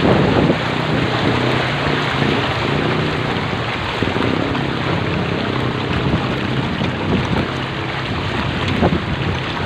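Floodwater splashing and churning steadily as a vehicle wades through a flooded street, with an engine's low hum underneath.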